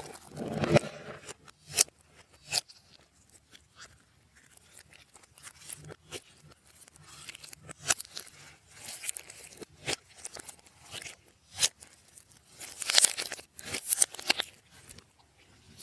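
Slime being mixed and squished by hand, giving irregular sticky pops and crackles. The crackling grows denser near the end.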